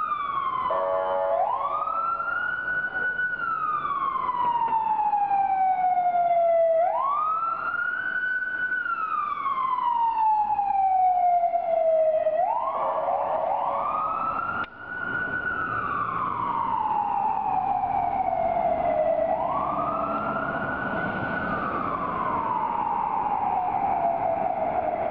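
Fire engine siren wailing: each cycle rises quickly, holds briefly at the top, then falls slowly, repeating about every six seconds.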